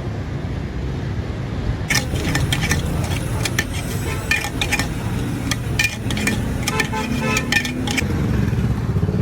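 City street noise with a steady rumble of traffic. From about two seconds in until near the end, a quick run of sharp metallic clinks and clatters, like dishes or utensils being knocked together, sits over the rumble.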